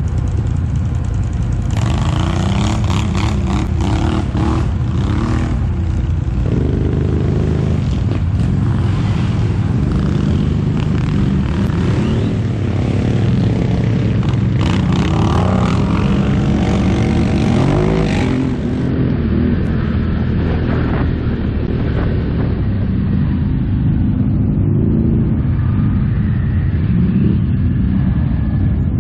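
ATV engines running on a trail ride: the camera quad's engine up close, revs rising and falling, with the engines of the quads ahead behind it. A rough crackling noise rides over the first two-thirds.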